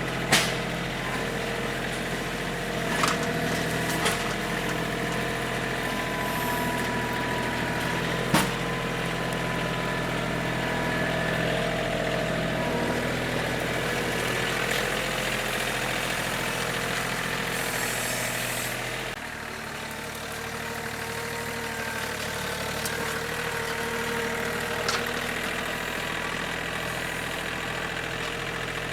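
An engine idling steadily, with a few sharp clicks or knocks. About 19 seconds in, the engine note shifts and drops a little in level, then idles on.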